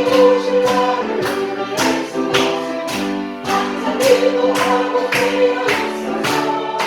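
Choir singing a gospel hymn with instrumental accompaniment, over a steady beat of sharp percussive strikes about twice a second.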